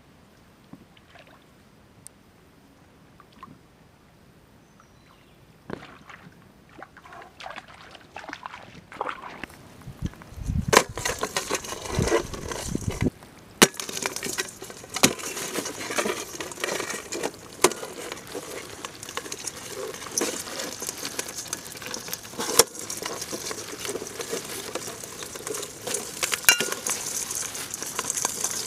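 Live freshwater crabs scrabbling in a steel bowl with a little water. Their legs and claws click and scrape on the metal as the water sloshes. It starts faint and builds into a busy run of clicks and scrapes from about a third of the way in.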